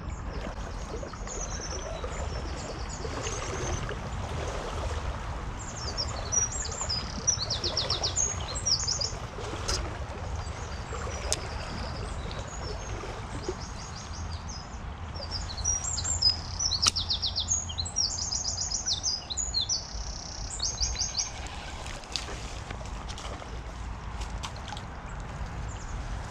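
A songbird singing in rapid, high trilled phrases, coming in two main runs with a few more near the end. A steady low rumble sits underneath.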